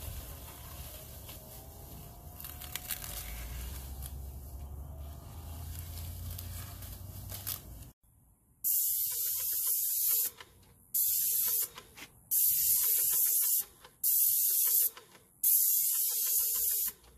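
Plastic masking sheeting rustling and crackling as it is pulled off a window. Then an airless paint spray gun hisses in about five bursts of one to two seconds each as the trigger is pulled and released.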